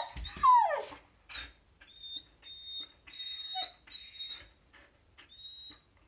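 Samoyed puppy whining in a string of short, high, thin, whistle-like tones like a tea kettle, with a falling whimper about half a second in. It is the eager whining of a dog whose dog friend is walking past the house while it has to wait to go out and play.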